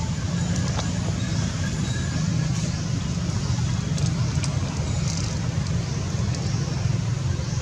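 Steady low rumbling background noise with a few faint clicks over it.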